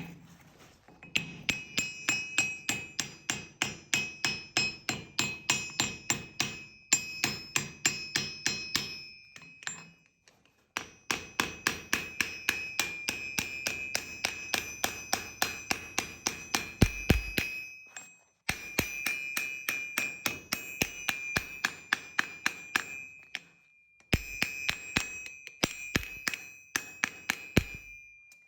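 Blacksmith's hammer striking steel on an anvil in fast, evenly paced blows, each with a bright metallic ring. The hammering comes in several runs broken by short pauses.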